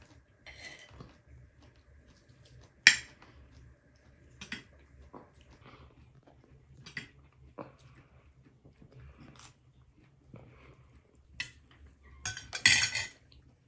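Spoons and forks clinking on china plates and a serving dish, with some chewing, as pilaf is served and eaten. A sharp clink comes about three seconds in, and a cluster of louder clatters comes near the end.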